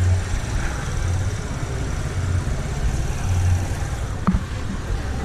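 Town street noise: a low, uneven rumble, with a short sharp knock about four seconds in.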